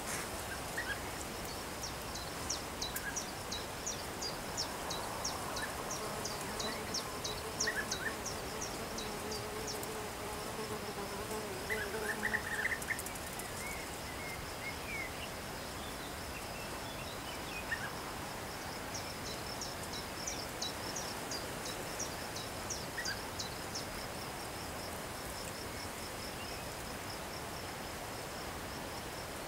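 Steady high-pitched insect chirring with a rapid series of short high ticks, about four a second, through the first ten seconds and again around twenty seconds in. A faint wavering buzz and a few short faint calls come in the middle.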